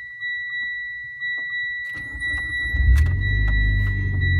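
Mitsubishi Lancer Evolution X MR's turbocharged four-cylinder engine cranking and starting about two seconds in, then idling steadily. A steady high electronic tone sounds behind it.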